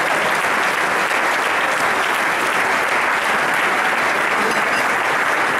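Audience applauding steadily, a dense, even clapping that holds at the same level throughout.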